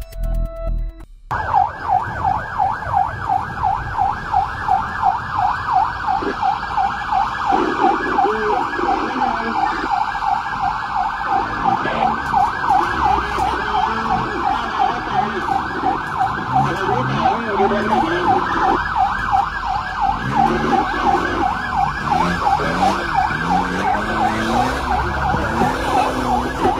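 Rescue vehicle siren in a fast yelp, its pitch sweeping up and down several times a second, heard from inside the cab of a rescue van on an emergency run. Electronic music cuts off about a second in. Lower sliding tones come and go beneath the siren from about seven seconds on.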